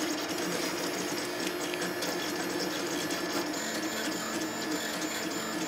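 3D printer running a high-speed print: its LDO stepper motors whine and buzz as the print head darts back and forth. The tone jumps from one pitch to another with each change of move.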